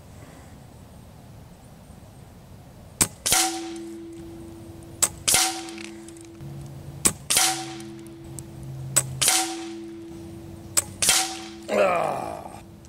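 A .22 Hatsan Factor RC regulated PCP air rifle firing five shots about two seconds apart. Each shot is a sharp crack followed about a third of a second later by a second crack.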